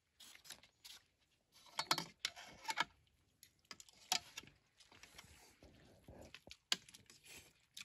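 Scattered light clicks and taps of utensils against a pot and bowls, with soft rustling, as instant noodles are dished out.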